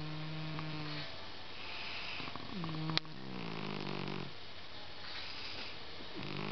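Domestic cat snoring while asleep. Each breath makes a low, buzzing snore, about one every three seconds, with a breathy hiss between them. A single sharp click comes about three seconds in.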